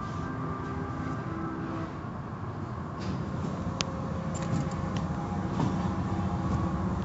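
Automatic tunnel car wash running: a steady mechanical rumble and hum from the wash machinery as the hanging cloth strips sweep over a car, with a sharp click a little under four seconds in.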